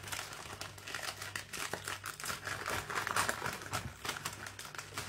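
Paper Subway bags crinkling and rustling as they are handled and opened, with many small crackles, loudest about three seconds in.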